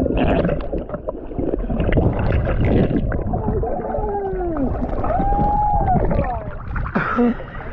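Underwater sound picked up by a submerged action camera while snorkeling: muffled rushing water and bubbling, with a few wavering pitched tones that rise and fall in the middle and a louder burst near the end.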